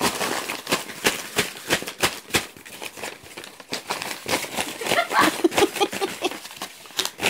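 Loose printed paper pages crinkling and rustling as a baby grabs and crumples them, in quick, irregular crackles.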